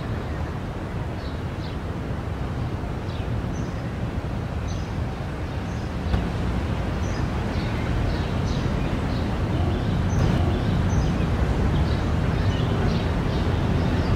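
Outdoor street ambience: a steady low rumble of road traffic, growing louder in the second half, with small birds chirping briefly again and again.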